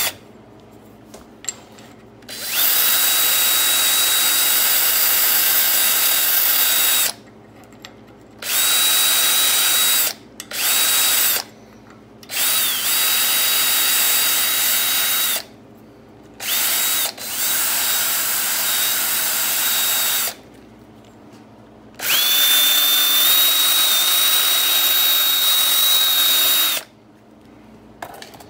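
Electric drill spinning an abrasive pad inside a shock absorber's end cap, scouring the gasket mating surface clean. It runs in about seven bursts of up to about five seconds each, a steady high whine over a scrubbing noise, with short pauses between.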